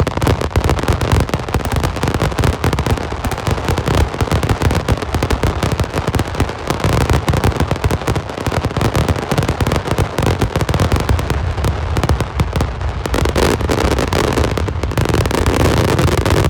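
Star mine fireworks finale: a rapid-fire barrage of shells bursting and crackling in a dense, unbroken stream, with deep rumbling bursts underneath.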